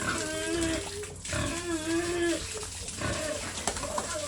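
Pig making two long, wavering squealing calls of about a second each, while it is being washed.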